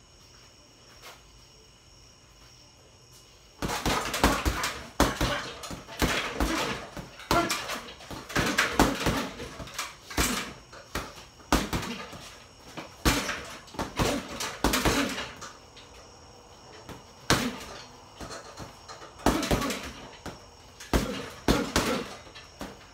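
Gloved punches landing on a hanging heavy bag: after a few quiet seconds, clusters of sharp thuds in quick combinations, with a short lull about two-thirds of the way through.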